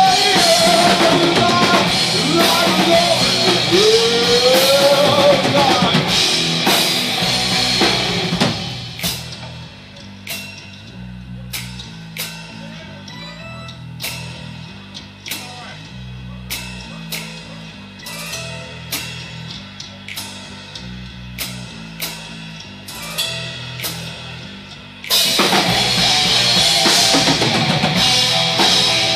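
Live metal band playing loud, with a rising sliding note about four seconds in. About eight seconds in the full sound drops away, leaving a quieter stretch of drum hits over a stepping bass line. The full band crashes back in a few seconds before the end.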